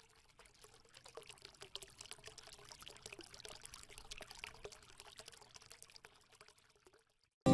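Faint trickling, pouring-water sound effect made of many small irregular clicks. It builds up about a second in and fades out near the end.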